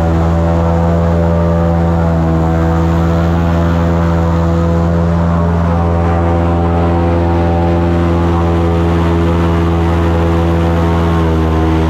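Airboat's engine and aircraft-type propeller running at steady high speed, a loud even drone. Near the end the pitch drops as the throttle eases off.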